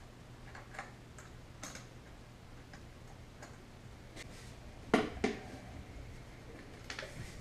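Scattered light clicks and taps of hands working on a Honda CT90's air cleaner housing and fittings, with two sharper knocks close together about five seconds in.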